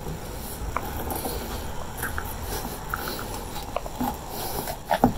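A plastic scraper worked along the joint between a Toyota Tacoma's plastic fender flare and the body, making scattered small clicks and scrapes as it slices through the foam double-stick tape behind the flare.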